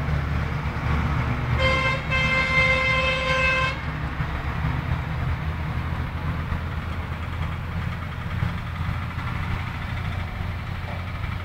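A vehicle horn sounds a short toot and then a longer one of about two seconds, over a steady low rumble.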